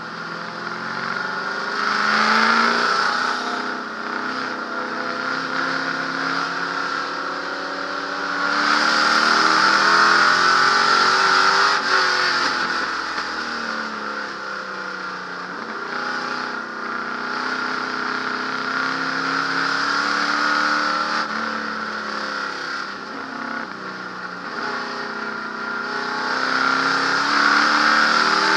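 Ford Galaxie 427 V8 race engine heard from inside the cabin under hard acceleration, its pitch rising and dropping back several times. It is loudest about two seconds in, from about eight to twelve seconds in, and near the end.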